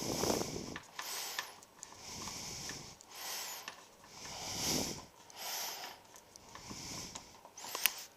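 Hand screwdriver with a T30 Torx bit tightening the door handle's fixing screw, a rasping rub with each twist of the wrist, about once a second, with a few small clicks.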